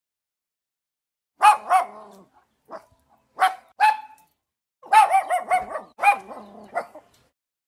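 A dog barking in short, high-pitched barks: a single bark about a second and a half in, a few shorter ones, then a quick run of about five barks near the end.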